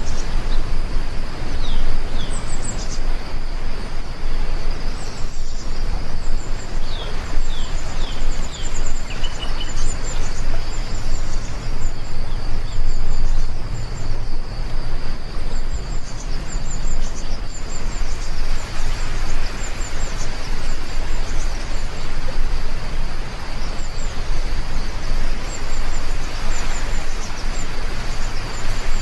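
Heavy rain falling in a steady, dense hiss. Birds chirp in quick high calls over it, mostly in the first third and again near the end.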